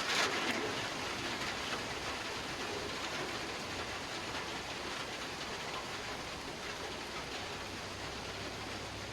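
Heavy rain falling steadily, with a brief louder surge right at the start.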